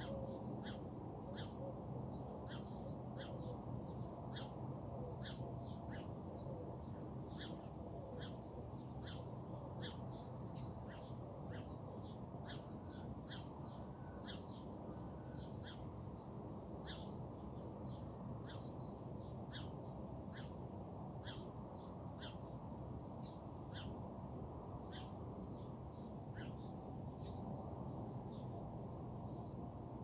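Wild birds chirping and calling: many short chirps throughout, with a thin high call every few seconds, over a steady low rumble.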